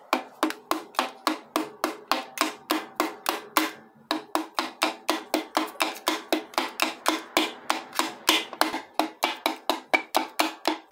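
A piston being tapped down through a ring compressor into the cylinder bore of a Mitsubishi 4D56U diesel engine block. The light, rapid taps come about four a second, each with a short ring, with a brief break about four seconds in.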